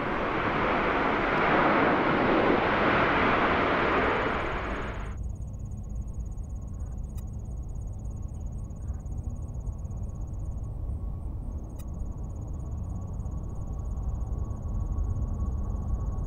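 Jet engines of a Boeing 747 at takeoff power during its takeoff roll: a loud, steady rush of noise that cuts off abruptly about five seconds in. Then the quieter, low rumble of an Airbus A380's four jet engines as it lifts off and climbs, growing a little louder near the end.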